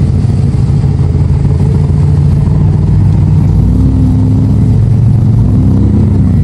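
Mid-engine C8 Corvette's V8 running at low revs as the car pulls out and drives slowly past close by, a steady low engine note with brief small rises in pitch.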